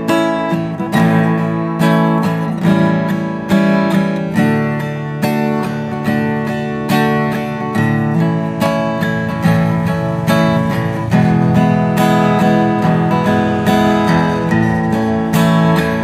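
Acoustic guitar strummed in a steady rhythm, playing a song's instrumental introduction.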